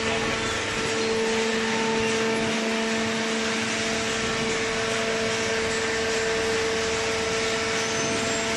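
Hydraulic baling press running: a steady motor-and-pump hum with a constant low drone and even machine noise.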